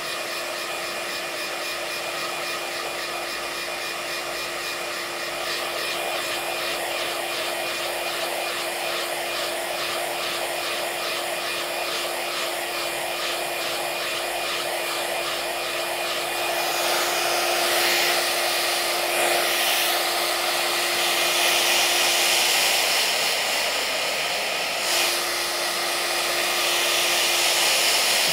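iTeraCare handheld terahertz wand running, a steady fan-like whir with a constant hum, growing somewhat louder about two-thirds of the way through.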